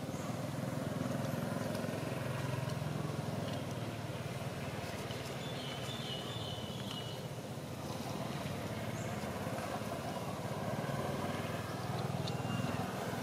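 Low, steady rumble of motor traffic, swelling a little twice.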